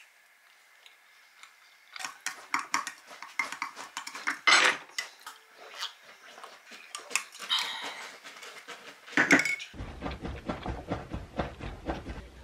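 Chopsticks and tableware clicking and clinking against plates, a run of irregular taps after a couple of seconds of quiet, with louder clatters about four and nine seconds in.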